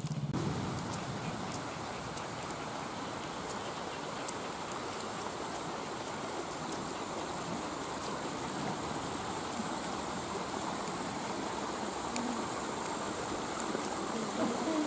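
Water running steadily down a small irrigation ditch: an even, unbroken rushing.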